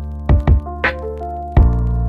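Background music: sustained synth and keyboard chords over a steady beat of low kick-drum thumps and sharper clap or snare hits.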